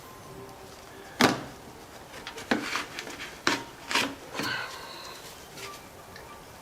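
Handling noise at a workbench: several sharp knocks of small objects being picked up and set down on a hard surface, with rubbing and rummaging between them.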